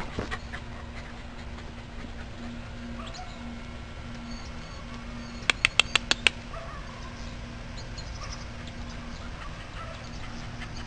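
Outdoor yard ambience with a steady low hum and faint high chirps. About halfway through comes a quick run of six sharp clicks.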